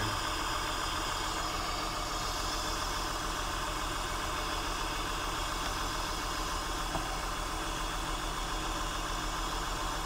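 Six-cylinder car engine idling steadily, an engine with a random misfire. There is a small click about seven seconds in.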